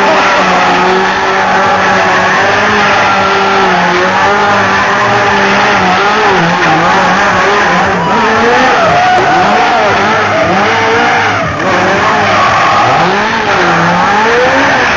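Car tyres squealing and skidding under a running engine, as in a stunt car spinning its wheels. The squeal wavers in pitch and swoops up and down more often in the second half.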